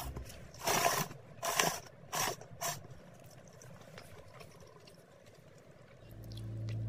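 Four short noisy bursts in the first three seconds: eating sounds from a bowl of miso ramen. Music fades in near the end.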